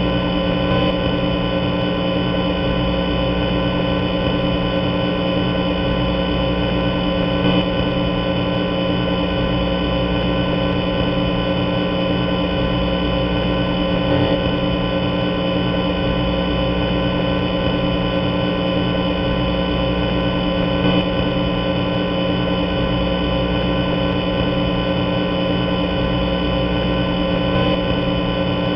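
Steady ambient background drone made of many held tones, with a slight swell about every seven seconds.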